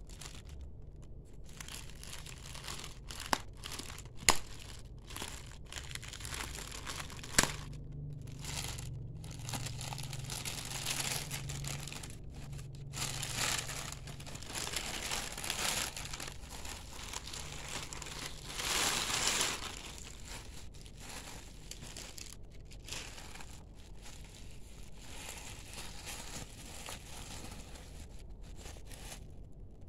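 Clear plastic wrapping crinkling and rustling as hands pull it off a packaged handbag, with a few sharp knocks in the first several seconds and louder bouts of crinkling around the middle.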